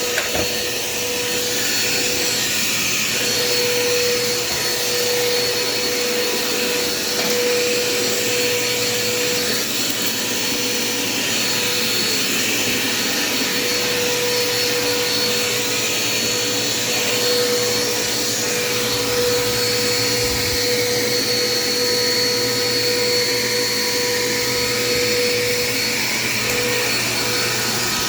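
Dirt Devil Quick Power vacuum cleaner running steadily while vacuuming, a continuous motor sound with a steady mid tone and a faint high whine. It has a newly fitted drive belt and runs smoothly, without bumping.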